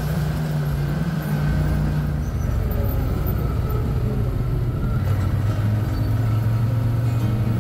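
CFMoto ATV engine running steadily while riding. Its pitch dips slightly about two seconds in, then holds level.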